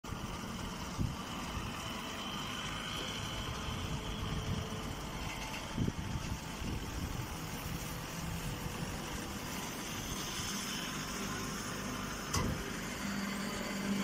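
Hydraulic straw baler and its inclined feed conveyor running: a steady machine hum and rumble with a few short knocks. A steady low tone comes up about a second before the end.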